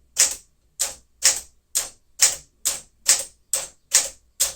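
Keys of a 1959 Smith-Corona Sterling manual portable typewriter striking the platen one at a time at an even pace, about two strokes a second, as the number row is typed.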